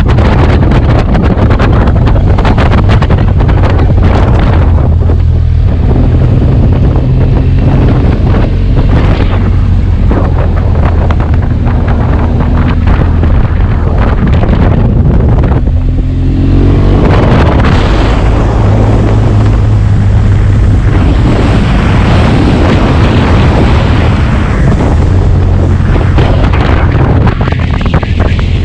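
BMW R1200GS boxer-twin engine through its stock exhaust, running under way with wind on the microphone. About halfway through the revs drop and then climb again in a rising glide as the bike accelerates.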